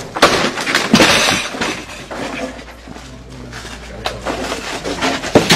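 Shrine objects being smashed and broken apart: sharp crashes near the start, a heavy crash about a second in, and more near the end, with a quieter clattering stretch between.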